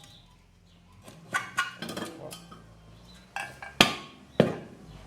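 Sharp metal knocks with a brief metallic ring, from the washing machine's rusted agitator shaft being struck against a wooden block to drive it out of its bearing housing; a few lighter knocks, then three louder ones in the second half.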